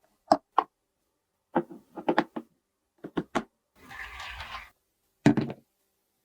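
Plastic toy pieces being handled: a series of short clicks and taps, a brief rustle about four seconds in, then a heavier knock.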